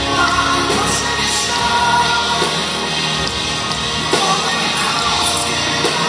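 Live rock band playing: a male lead vocal sung over electric guitar and drums.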